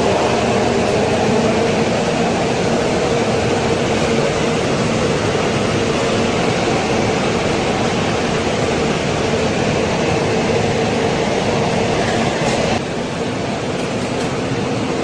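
Steady loud rumble of a moving vehicle with a constant low hum; the level drops abruptly near the end.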